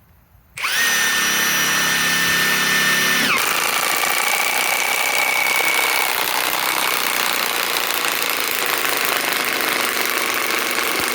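Milwaukee M18 Fuel Gen 3 high-torque impact wrench starting with a steady motor whine for about three seconds, then hammering continuously as its impact mechanism engages, driving a fastener into wood hard enough to split it.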